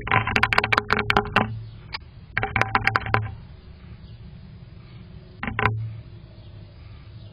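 Three bursts of rapid clicking and scraping carried through the nest box: a common kestrel moving about on the box just out of view, the last burst short.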